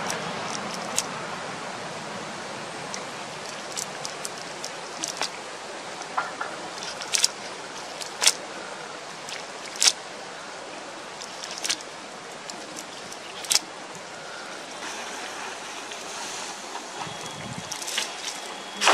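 A wet nylon cast net being handled and picked over by hand at a muddy pond edge: scattered sharp clicks and ticks over a steady outdoor hiss. Near the end there is a louder rush as the net is swung out to be cast.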